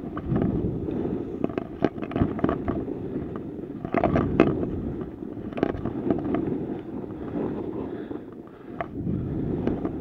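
Skis scraping and chattering over chopped-up, lumpy snow during downhill turns, with sharp knocks and clacks every so often.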